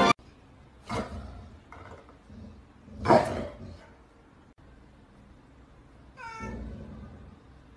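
Domestic cat hissing and yowling in three short outbursts, the loudest about three seconds in and a pitched, falling yowl near the end: an angry cat warning off a dog.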